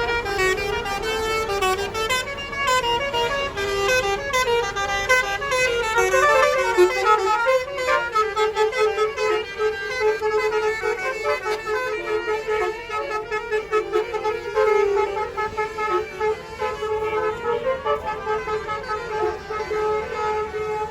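Indonesian bus 'telolet' basuri musical horns playing a rapid melody of stepped notes, followed about eight seconds in by a long held note with quicker notes sounding above it.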